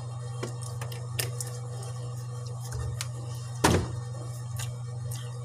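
A plastic water bottle set down with one sharp thunk about two-thirds of the way in, over a steady low hum and a few faint clicks.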